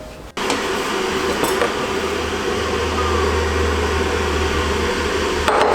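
A small electric appliance switches on suddenly and runs with a steady hum and whir.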